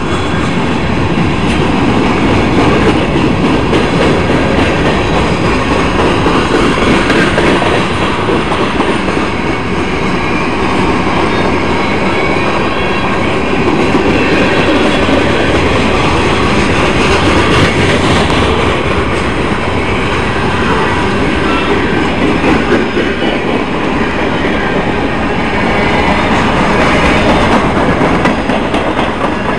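Freight train rolling past at a grade crossing: a loud, steady rumble of railcar wheels on the rails.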